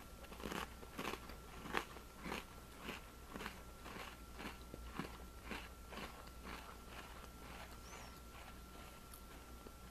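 Close-up chewing of a crunchy Pumpkin Spice Oreo sandwich cookie, about two crunching chews a second, fading away after about seven seconds.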